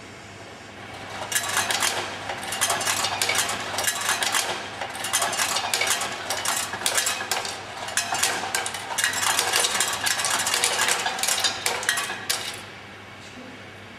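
Small metal objects clinking and jangling rapidly and without a break, starting about a second in and stopping near the end.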